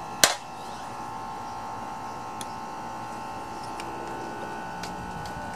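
A single sharp metal click as a small-engine carburetor's float bowl is worked loose by hand, followed by a few faint ticks of the parts being handled over a steady high background hum.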